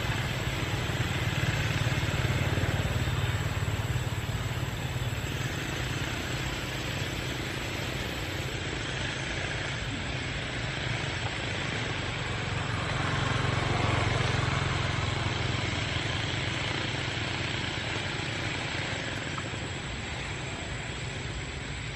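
Steady low engine rumble of a vehicle under an even hiss, swelling about two seconds in and again around fourteen seconds.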